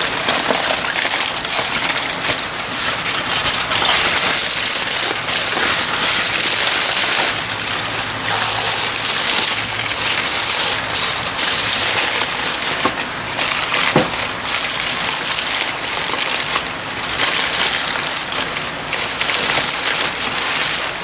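Aluminium foil crinkling and crackling steadily as hands fold and crimp it around a dish.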